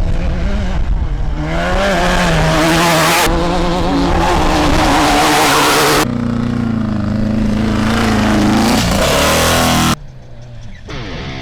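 Off-road race vehicle engines running and revving in several short shots cut together. The engine pitch wavers up and down, and the sound changes abruptly about six seconds in and drops quieter about ten seconds in.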